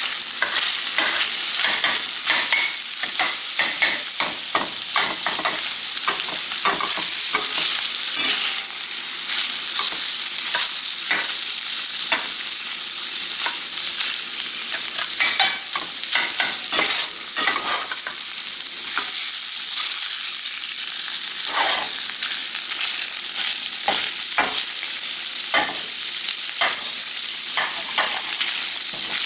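Bacon and crumbled pan sausage sizzling in their own grease in a stainless steel skillet, with a steady frying hiss. A metal spoon stirs and breaks up the meat, scraping and clicking against the pan many times.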